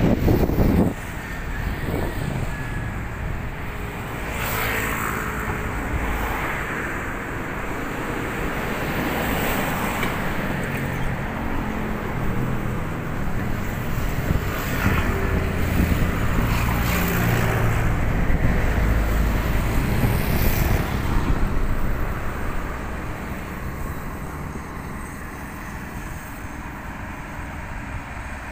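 Road traffic passing: a steady rumble of vehicles, with several swelling past and fading away. A brief, loud low rumble in the first second.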